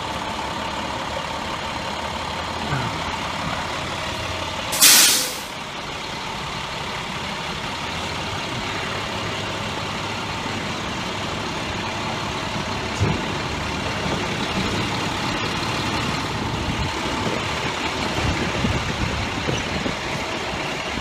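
FDNY high water rescue truck's engine idling steadily, with one short, loud hiss of air brakes about five seconds in.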